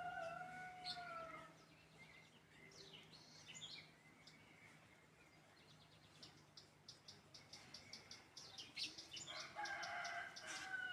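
A rooster crowing, one long crow ending about a second and a half in and another near the end, with small birds chirping in between, including a quick run of chirps a few seconds before the end.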